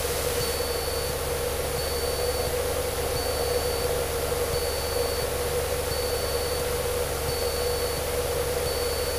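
Cessna 152's four-cylinder Lycoming engine droning steadily in cruise flight, with an even low hum and a steady mid-pitched tone. A short, faint, high beep repeats evenly over the drone, a little under once every second and a half.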